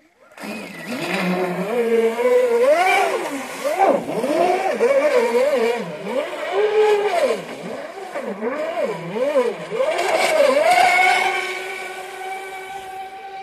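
Kulmus HPR 135 radio-controlled racing boat's motor running hard on the water, its pitch rising and falling over and over as it is throttled through turns. It settles into one steady pitch near the end as the boat runs straight away.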